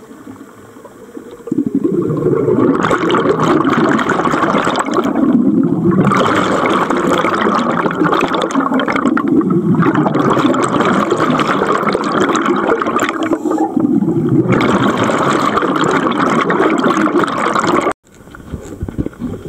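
Scuba divers' exhaled air bubbling loudly from their regulators underwater, in long surges with two short lulls. It cuts off abruptly near the end.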